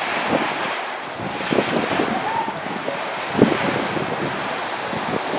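Steady rushing and splashing of sea water churned up by a pilot boat's bow wave and wake running alongside a ship's hull, with wind buffeting the microphone.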